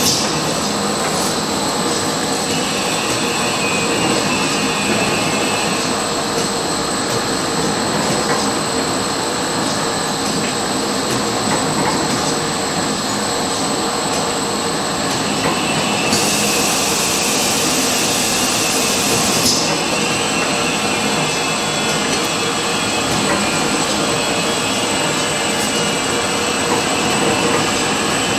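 Paper napkin folding machinery running steadily, a continuous mechanical clatter with a steady high whine. A hiss joins it for about three seconds a little past the middle.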